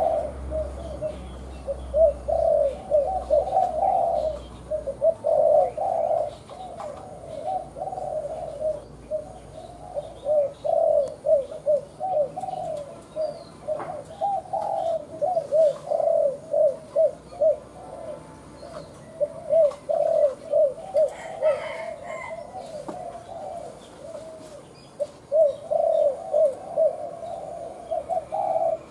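Caged decoy spotted dove cooing in quick runs of short, low notes, almost without pause. Faint chirps of small birds are heard above it.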